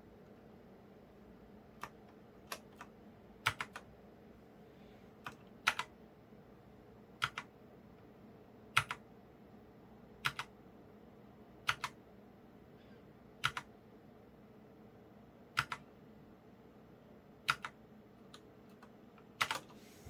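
Keys on a Micronics MANIC ZK7 gaming keyboard pressed one at a time: a sharp click or a quick pair of clicks about every one and a half to two seconds.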